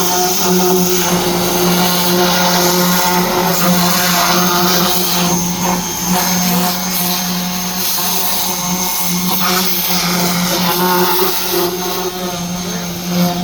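Ryobi portable pressure washer running: a steady motor-and-pump hum under the hiss of the water spray.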